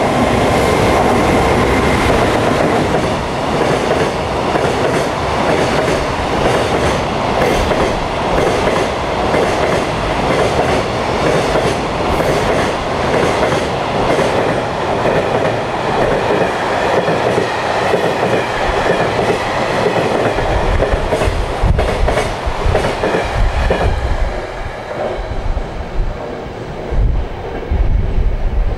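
High-speed container freight train passing at speed, a long run of wagons with wheels clicking rhythmically over the rail joints. Low gusty rumbling joins in during the last third as the train noise begins to fade.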